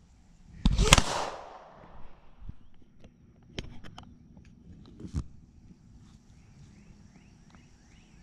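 A single loud gunshot about a second in, with a short echoing tail, followed by a few faint clicks a few seconds later.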